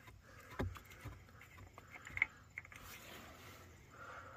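Faint clicks and light rustling from an ATV's oil dipstick being pushed back into its tube and pulled out again, with a rag in hand, to recheck the oil level.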